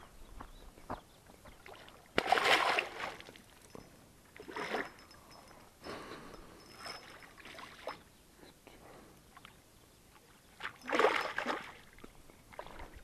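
Water splashing in irregular bursts, loudest about two seconds in and again about eleven seconds in: a small hooked fish thrashing at the surface.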